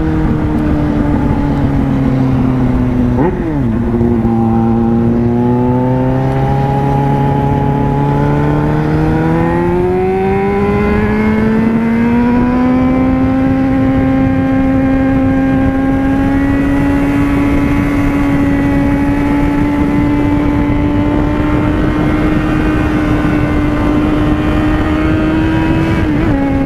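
Yamaha FZ6N inline-four engine heard from the rider's seat while riding, over steady wind rush. The engine note falls and drops sharply about three seconds in, then climbs smoothly for several seconds as the bike accelerates and holds at a higher pitch.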